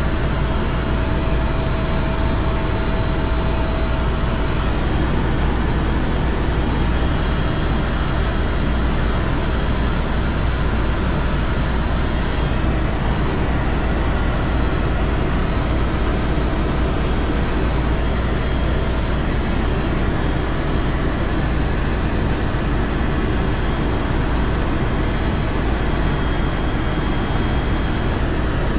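Tour helicopter in flight, heard from inside the cabin: a steady, loud drone of rotor and engine that does not change.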